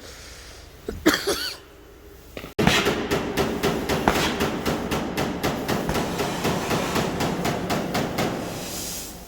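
Rapid hammering, about four or five blows a second, starting abruptly a few seconds in and fading near the end.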